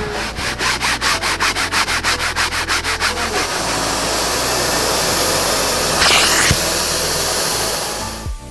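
Carpet extractor's upholstery nozzle sucking water out of a wet mattress: a loud steady suction hiss that surges briefly about six seconds in and stops just before the end. Before it, for about three seconds, comes a quick run of short hissing strokes, about six a second.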